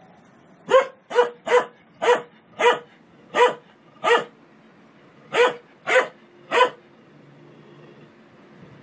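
A dog barking: ten sharp barks, a run of seven, a short pause, then three more.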